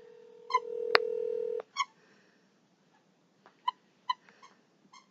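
Squeaky novelty noises heard over a phone line: a steady electronic tone lasting about a second, then several short, high squeaky chirps.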